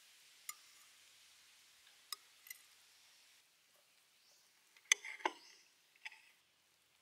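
A few light clicks as stuffed bell peppers are set down on a ceramic plate, then, about five seconds in, a knife cutting through an egg-filled bell pepper with a quick cluster of cutting noises and the blade knocking on the plate.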